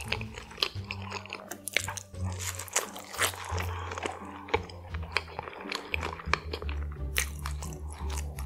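Close-miked biting and chewing of cheese- and sauce-covered french fries (animal fries), with many small wet mouth clicks. Background music with a steady bass line plays underneath.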